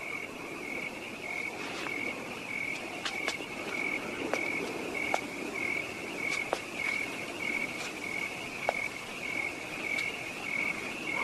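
Crickets chirping in a steady, even pulse, about one and a half chirps a second, with a few faint ticks underneath.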